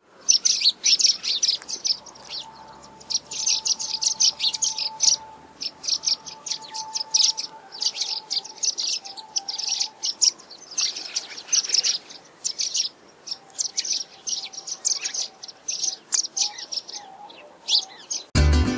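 Small birds chirping in quick, high-pitched bursts about a second long, one after another with short gaps. Plucked-string music starts right at the end.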